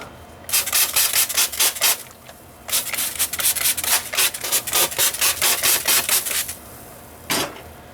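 Quick back-and-forth abrasive scrubbing strokes on a plumbing pipe joint, about five a second, in two runs with a short pause between and one last stroke near the end: the joint being cleaned for re-soldering after it sprang a leak from the heat.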